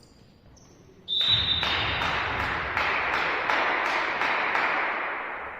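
Clapping and cheering in a sports hall that break out suddenly about a second in, with a brief high whistle at the start, then fade away near the end.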